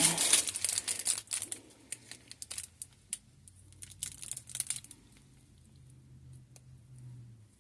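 Plastic piping bag crinkling as it is handled and squeezed. The crinkling is densest for the first second or so, then thins to scattered light clicks and rustles.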